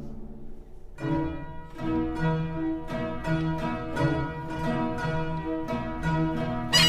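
Background music of plucked string notes in a steady pulse, starting about a second in, with louder bowed strings coming in at the very end.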